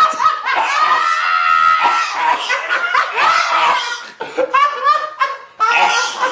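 Loud, high-pitched laughter, breaking off briefly a little after four seconds in and then starting again.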